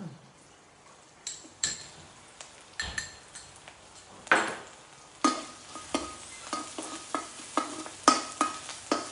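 Chopped garlic sizzling in hot oil in a non-stick electric wok, with a few clinks as it is spooned in from a bowl. From about five seconds in, a metal spatula scrapes and stirs it around the pan in quick strokes, about three a second.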